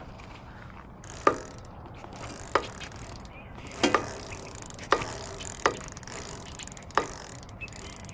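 About six sharp, irregularly spaced clicks from the rear wheel and drivetrain of a Schwinn Hurricane electric bike. It is the noise the rider traces to the back of the bike and suspects is a rear brake needing adjustment.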